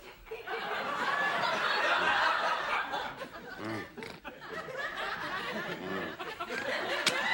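Studio audience and cast laughing, many voices overlapping, swelling about a second in.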